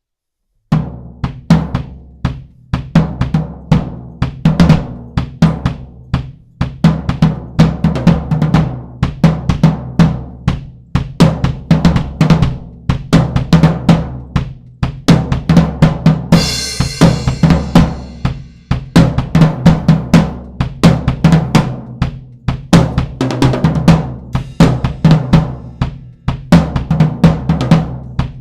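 Pearl Export drum kit played in a continuous beat with fills, its floor tom fitted with a new Evans 56 Calftone head, the toms ringing on. It starts abruptly about a second in, with a cymbal crash about sixteen seconds in.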